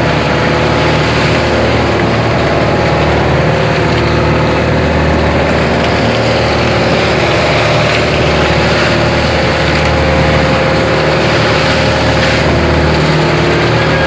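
A fishing boat's engine running steadily at an even speed.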